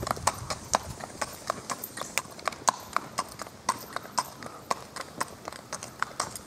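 A horse's hooves clip-clopping on an asphalt driveway as it is ridden at a steady gait, about four sharp hoofbeats a second.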